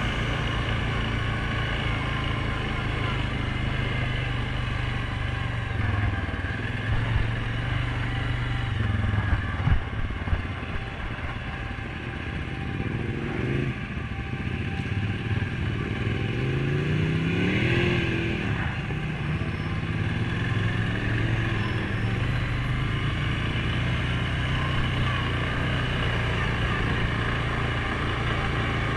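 2019 Suzuki King Quad 750 ATV's single-cylinder engine running steadily while riding, heard from on the machine. About halfway through, a second engine rises and then falls in pitch as an oncoming side-by-side passes.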